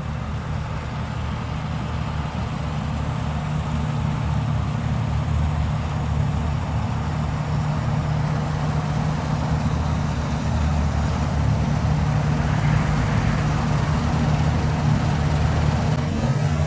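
Diesel engine of heavy farm machinery running steadily, slowly getting louder as it comes nearer.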